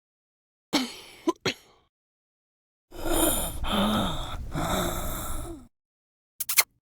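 A woman's comical vocal sound effects, one after another: a short exclamation about a second in, then a long vocalization of about three seconds whose pitch wavers up and down, and a brief sound near the end.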